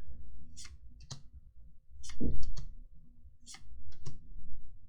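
Trading cards being handled and flipped one at a time: a series of short sharp clicks and snaps, about seven in all, with one duller thump a little over two seconds in.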